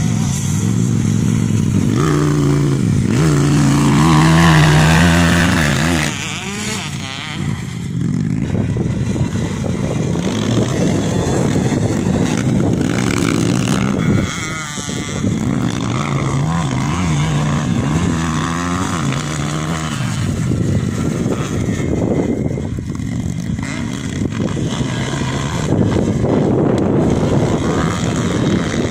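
Motocross dirt bike engines running hard around a dirt track, their pitch rising and falling over and over as the riders accelerate, shift and back off through the corners.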